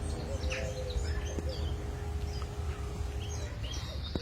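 Several small birds chirping and calling over and over, with short high chirps overlapping. Underneath is a steady low rumble and a faint steady hum that stops near the end.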